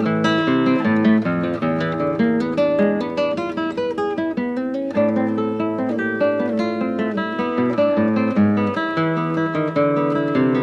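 Background music on acoustic guitar: a steady stream of plucked notes over lower sustained bass notes.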